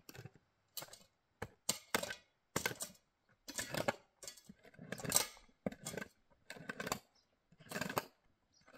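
Shovel and hoe blades scraping and scooping stony dirt in a rapid series of short strokes, with metal clinking against gravel and stones.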